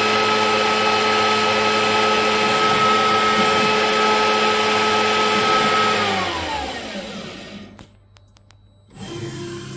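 Spindle motor of a Denver Quota Tech CNC stone working center running at a steady high speed with a steady whine, then winding down, its pitch falling and fading out about six to seven and a half seconds in. A quieter, lower hum follows near the end.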